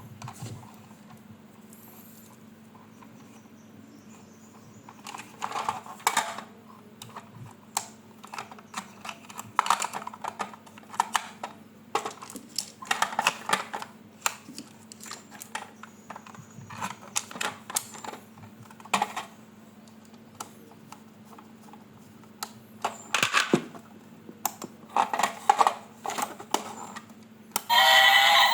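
Plastic toy parts and packaging handled, with scattered clicks, rattles and short crinkly bursts. Near the end a loud, pitched electronic toy sound starts.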